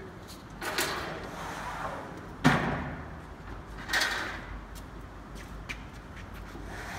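Thermoforming machine cycling: a short rushing hiss about a second in, a heavy clunk a moment later, and another short hiss about four seconds in, over a steady machine hum.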